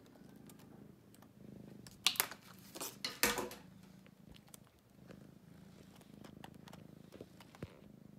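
A long-haired tabby cat purring steadily. From about two to three and a half seconds in there are loud brushing and knocking noises close to the microphone.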